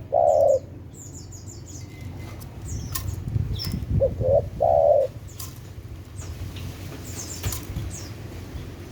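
Spotted dove (tekukur) cooing. A phrase ends right at the start, and about four seconds in comes a full phrase of two short notes and one longer rolling note. Thin high chirps sound here and there throughout.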